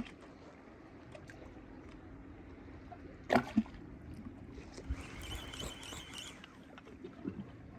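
Seawater lapping and trickling, with one sharp knock a little over three seconds in and a few faint clicks.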